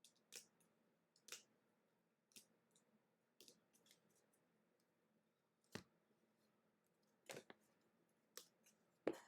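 Faint scattered clicks and rustles of trading cards and packaging being handled, about one a second, the loudest near the end.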